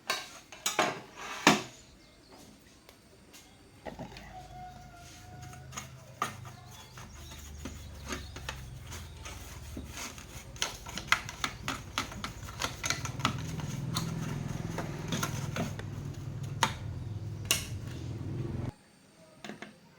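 Small clicks and taps, then a steady low hum from some running device for about fifteen seconds with light clicks and knocks over it, cutting off suddenly near the end.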